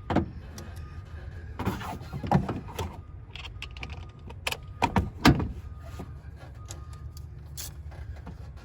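Irregular knocks and clicks of hand tools and screws worked by hand while the throttle body is fitted back on, the loudest about five seconds in. A steady low hum runs underneath.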